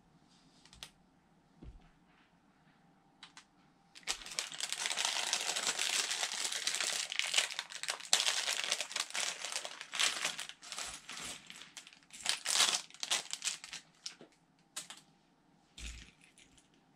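Plastic bag of LEGO pieces being crinkled and opened: a dense crackling rustle starts about four seconds in and breaks into shorter crinkles after about ten seconds. A few light clicks of plastic bricks come before it.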